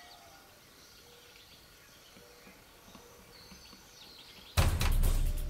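Quiet field ambience with faint bird calls. About four and a half seconds in, loud music with a heavy bass suddenly cuts in.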